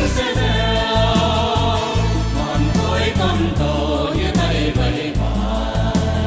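Music with singing voices over a heavy bass and a steady beat.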